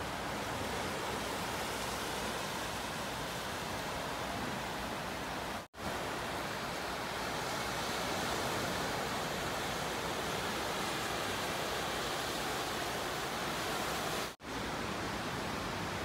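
Steady rushing wash of small waves breaking on a sandy beach, cutting out abruptly twice for a split second.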